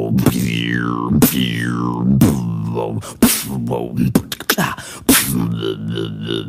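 A beatboxer imitating sound effects with the mouth. It starts with a low droning hum carrying two falling whistles, then a quick run of sharp clicks and pops about halfway through.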